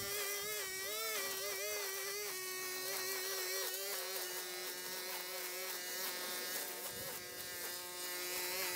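A small high-revving motor running with a steady buzzing whine. Its pitch wavers up and down in the first couple of seconds, then holds steadier.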